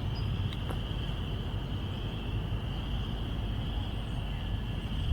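Steady outdoor background: a constant low rumble under a steady high-pitched drone, with no distinct events.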